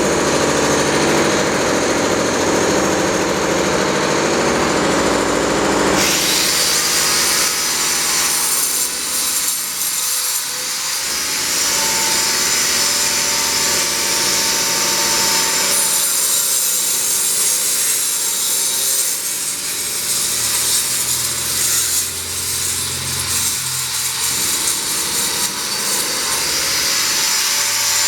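Angle grinder with a widia (carbide-tipped) disc cutting channels into a brick wall. About six seconds in, the sound changes abruptly from a lower, heavier running sound to a higher, hissing grind.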